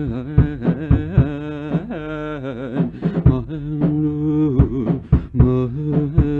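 Isolated male lead vocal singing wordless, wavering held notes with vibrato, with short clicks scattered through it.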